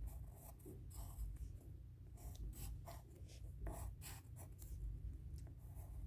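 Pencil scratching on paper as a shape is sketched: faint, short, irregular strokes, several a second.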